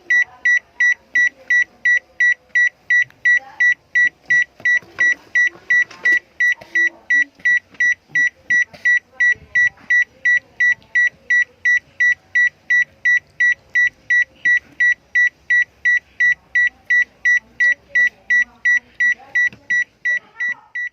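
Electronic alarm beeping: a rapid, steady train of short high beeps, about two and a half a second, fading out near the end.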